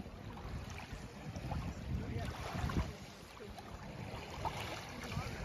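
Wind buffeting the microphone over small waves lapping at the edge of a pebble beach, an uneven steady rush with low rumbling gusts.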